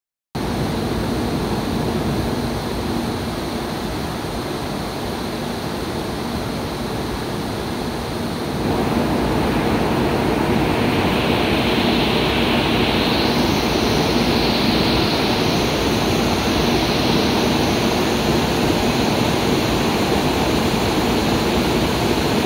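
Steady rushing noise beside a stopped Shinkansen Kodama train at the platform, growing louder about eight seconds in, with a higher hiss for several seconds after that.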